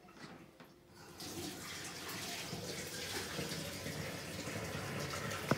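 Water running steadily from a tap, turned on about a second in, with a sharp click near the end.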